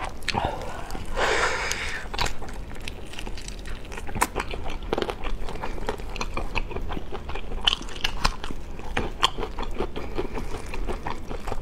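Close-miked eating sounds: chewing and the sticky tearing of glazed chicken wings pulled apart by plastic-gloved hands, full of small wet clicks and crackles, with a short louder rush of noise about a second in.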